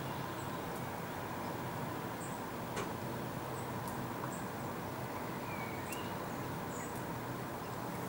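Steady outdoor hiss with scattered faint, high bird chirps and a couple of single sharp taps. No drumming roll is heard.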